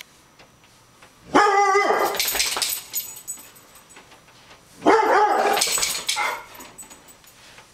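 Airedale terrier barking in two loud bouts, each about a second and a half long, some three seconds apart: alarm barking at a raccoon on the deck.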